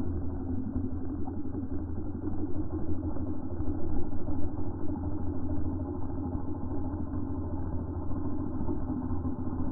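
Chainsaw engine idling steadily and muffled, with no crack or impact.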